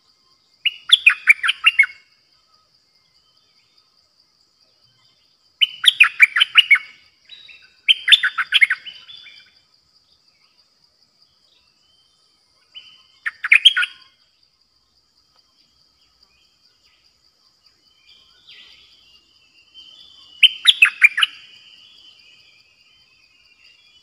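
Caged decoy bulbul singing five short phrases of rapid notes, spaced several seconds apart, over a steady high insect buzz.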